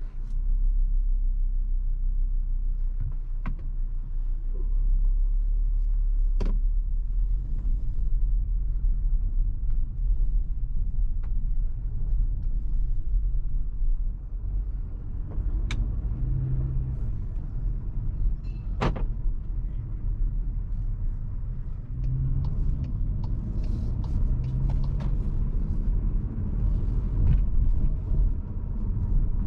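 Cupra Formentor VZ5's 2.5-litre turbocharged five-cylinder engine and road rumble while driving, the engine note rising a couple of times as it pulls. A few sharp clicks or knocks stand out over the rumble.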